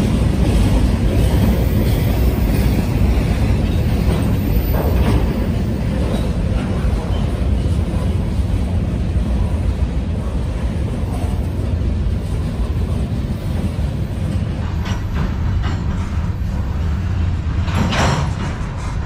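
Freight train cars rolling past: a steady low rumble of steel wheels on rail, with scattered clacks and a brief louder burst near the end.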